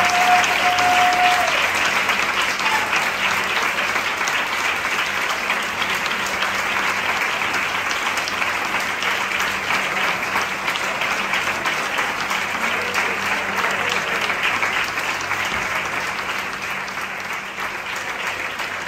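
Audience applauding, easing off slightly toward the end. The last held note of the tango music stops about a second and a half in.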